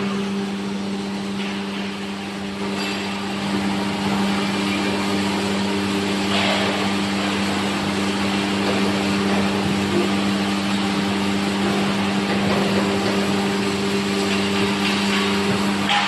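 Vertical baler's hydraulic power unit running with a steady hum over a mechanical hiss, a little louder from about four seconds in.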